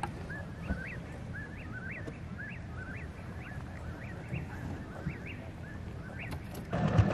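A bird calls over and over in the dark, short rising chirps about twice a second, over a steady low hum. Near the end a much louder low, throbbing sound cuts in.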